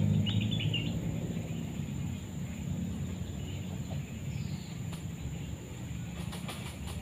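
Outdoor ambience of birds and insects: a few short bird chirps near the start and a falling call about four seconds in, over a steady high insect drone. Under them a low rumble fades during the first couple of seconds.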